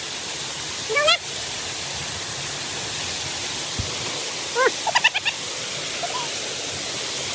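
Steady rushing of a waterfall. A few short pitched calls rise over it about a second in and again around five seconds.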